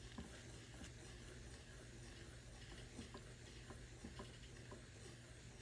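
Faint scratching of a mechanical pencil sketching a circle round and round on sketchbook paper, over a low steady room hum.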